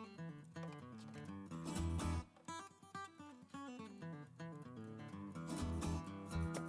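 Background music: plucked acoustic guitar.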